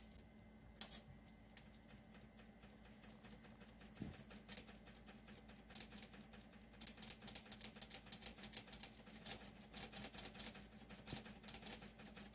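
Faint, rapid clicking of a finger tapping the up-arrow key on an electric oven's control panel to set the baking timer to one hour, about five taps a second in the second half.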